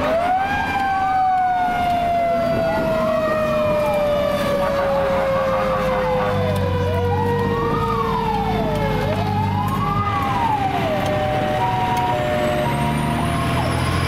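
Electronic siren wailing, its pitch rising and falling about every two seconds, heard from inside the fire truck's cab. Alongside it a Federal Q mechanical siren winds up at the start, then slowly winds down with steadily falling pitch.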